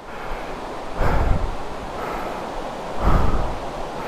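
Heavy breathing of a person climbing a steep trail, a breath about every two seconds, over the steady rush of a mountain stream.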